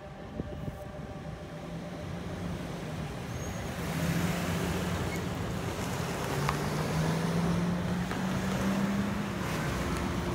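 Cars and a van driving over the railroad crossing one after another after the gates lift. The traffic grows louder about four seconds in, and one engine's note rises and then drops back near the end.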